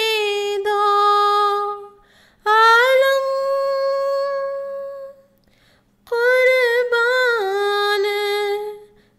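A high solo voice singing a poem unaccompanied, drawing out three long held notes with short breaks between them; the middle note rises and is held steady, the last one steps down in pitch near its end.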